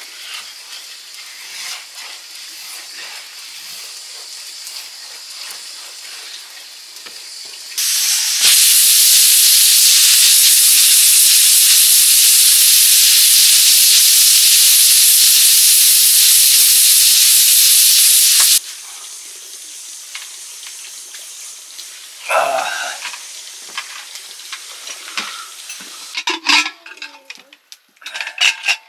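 Food cooking in a pan over a fire: a sizzle with small clicks and scrapes of stirring. About eight seconds in, a much louder, even hiss starts suddenly, holds for about ten seconds and cuts off just as suddenly. Quieter sizzling and scattered knocks follow.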